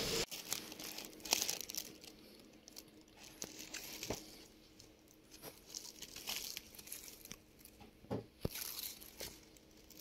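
Light crinkling and rustling with scattered small clicks and taps, over a faint steady hum.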